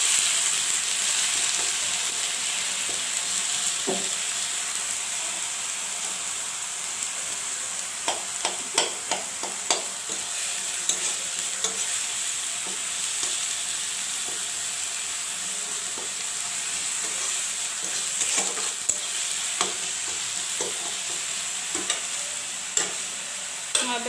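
Onion, ginger and garlic masala paste sizzling as it fries in hot oil in a pan, stirred with a spatula. The steady sizzle eases a little early on, and short runs of sharp taps and scrapes come about eight seconds in and again near the end.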